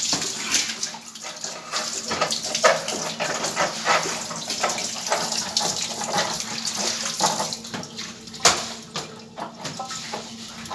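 Water running and splashing, with irregular clicks and knocks, over a steady low hum. A sharper knock stands out near the end.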